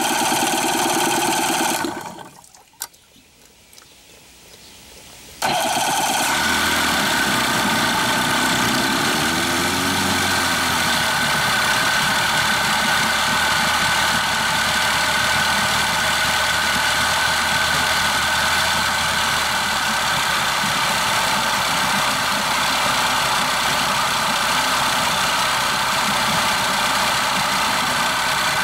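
Yamaha/Mariner 40 HP two-stroke outboard: the engine sounds for the first two seconds, drops away with a click, then starts again abruptly about five seconds in and runs steadily.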